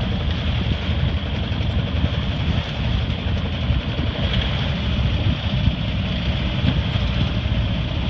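Sailboat's inboard engine running steadily, mixed with wind rushing over the microphone.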